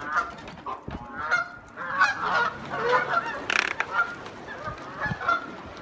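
A flock of geese honking, many short calls overlapping and repeating.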